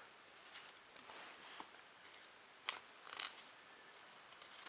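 Faint handling of glossy magazine paper, with a couple of short, crisp rustles as the pages are turned, the clearest near the middle.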